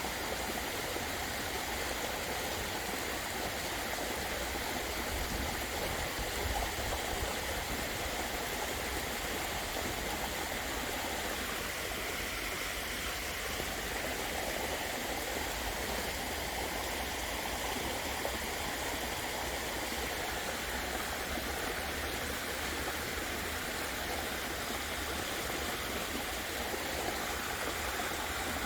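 Waterfall splashing down in a steady, unbroken rush of falling water.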